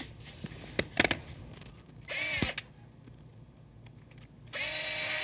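Cordless PVC pipe shear running in two bursts while cutting PVC pipe: a short whine about two seconds in that drops in pitch as it stops, then a longer steady whine from about four and a half seconds in. A few light clicks come before them.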